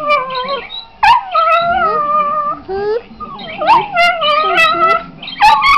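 Patterdale terrier × border terrier cross 'singing': a string of long, wavering howls and whines one after another, several sliding down in pitch, with short breaks between them.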